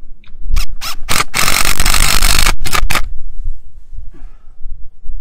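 DeWalt cordless impact driver driving screws into wall plugs: three short bursts on the trigger, a steady run of about a second and a half, then two more quick bursts. The screws are being run in, not yet tightened.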